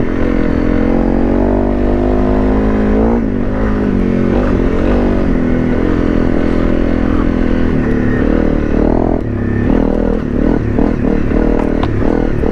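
Honda CRF250 Rally's single-cylinder four-stroke engine running on the move. It holds a steady note for about three seconds, then its pitch rises and falls with the throttle, with quicker blips over the last few seconds.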